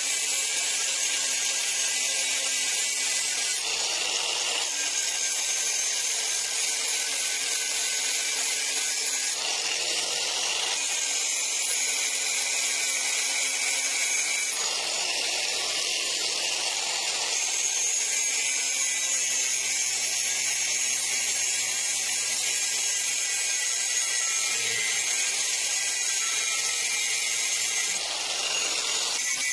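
Angle grinder running at speed, its abrasive disc grinding a steel blank cut from a used disc blade: a steady high whine with a gritty edge. It turns harsher for a second or two several times, about 4, 10, 15 and 28 seconds in.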